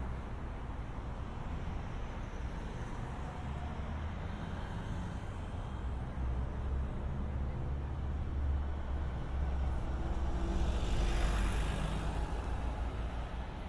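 Urban road traffic: a steady low rumble of engines. About ten seconds in, a pickup truck passes close by, and its engine and tyre noise swells and then fades.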